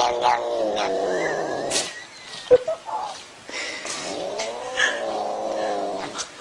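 A tortoiseshell cat yowling in two long, drawn-out wails. The first trails off about two seconds in, and the second starts about a second later and fades near the end. A single sharp click falls in the gap between them.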